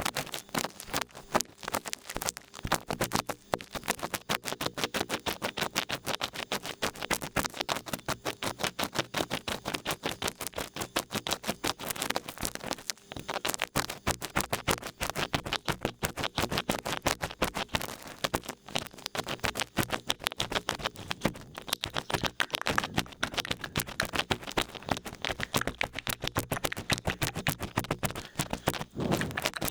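Large ear pick scratching and scraping in an ear for ASMR ear cleaning: a rapid, continuous run of small scratchy clicks close to the microphone.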